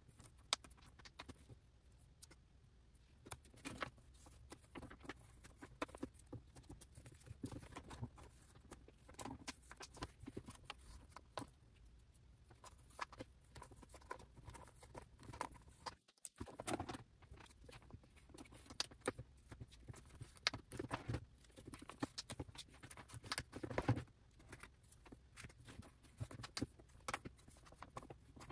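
Faint plastic rustling with irregular light taps and clicks as sleeved photocards are slid into a ring binder's clear plastic pocket pages.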